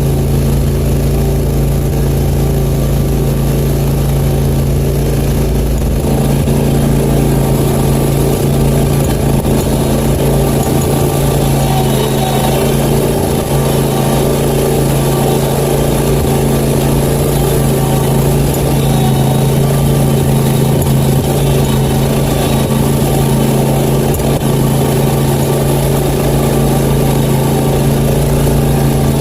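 Country Clipper zero-turn mower's engine running at a steady, unchanging speed, loud and close.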